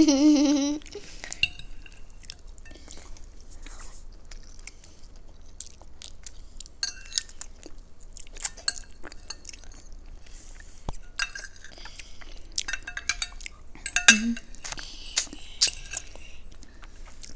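Metal fork and spoon clinking and scraping against glass plates in irregular small clicks, with chewing and other mouth sounds of eating.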